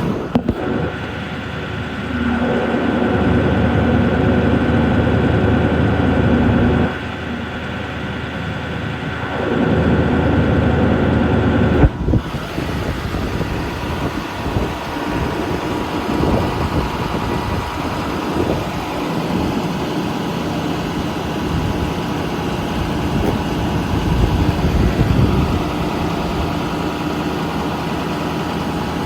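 Winch running under power in two pulls, about two to seven seconds in and again from about nine to twelve seconds in, stopping sharply, over the steady idle of the truck's 6.4 Power Stroke diesel engine.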